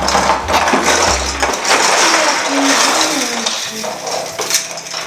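Cardboard box of silver Christmas baubles being pulled open and tipped, the baubles and a bead garland clattering and rustling against the cardboard and each other.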